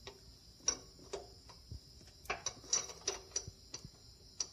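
Light, irregular metallic clicks and taps, about a dozen, as the air-conditioner compressor's clutch plate is handled and fitted back onto the compressor shaft by hand.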